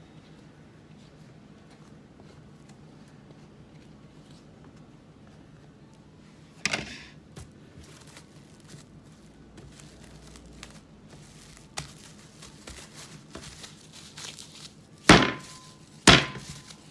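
Low room hum with a few light knocks and rustles. Near the end come two loud thumps as the cookie dough is gathered up in its plastic wrap and pressed on the granite counter.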